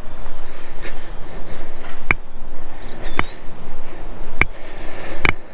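Footsteps on a hard path, a sharp step about once a second. Insects trill steadily in the background, and a bird chirps once about three seconds in.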